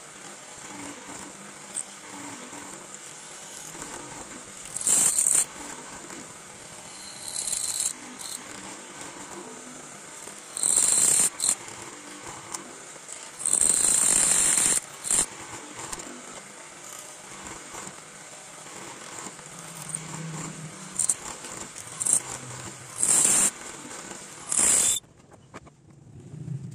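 Drill press boring a row of holes into a teak beam: a steady machine whine broken by about nine short, loud bursts of cutting noise as the bit plunges into the wood. About a second before the end the sound drops away sharply.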